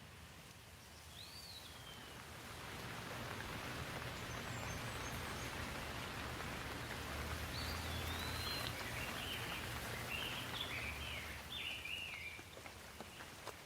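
Steady rain hiss that swells over several seconds and eases off near the end, with small birds chirping over it.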